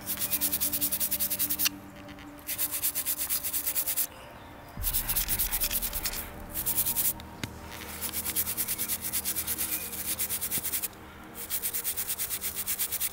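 A plastic-bristle brush scrubbing a dug-up metal medal to clean off the dirt, in quick back-and-forth strokes of about ten a second. The strokes come in several bursts with short pauses between them.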